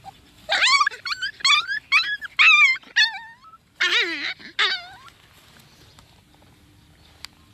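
About ten short, shrill yelping squeals in quick succession from a young animal, some sliding down in pitch, during a scuffle between a baby macaque and a puppy. The calls stop about five seconds in.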